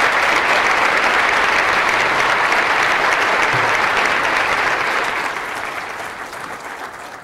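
Large audience applauding with steady clapping that begins to die away about five seconds in.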